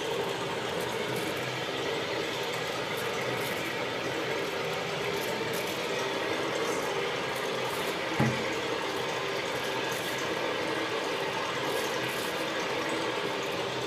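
Batch mixer running steadily, its chain-driven paddle shaft churning maize grits in the trough, with a steady hum. A brief low knock about eight seconds in.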